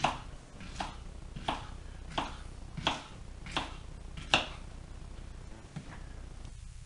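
Kitchen knife chopping pineapple into small pieces on a wooden cutting board: seven sharp knocks of the blade on the board, evenly paced about one every 0.7 seconds, then quieter handling of the pieces after about four and a half seconds.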